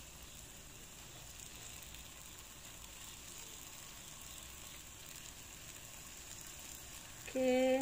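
Takoyaki batter frying in oil in a cast-iron takoyaki pan, giving a faint, steady sizzle.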